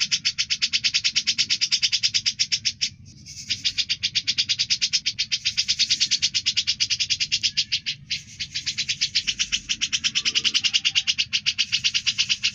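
Grey-cheeked bulbul (cucak jenggot) singing a long, fast run of evenly repeated high notes, about ten a second, which breaks off briefly twice, about three and eight seconds in.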